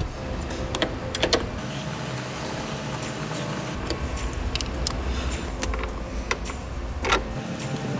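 Scattered clicks and knocks of car interior parts being handled and fitted back together during reassembly, over a low rumble that fades near the end.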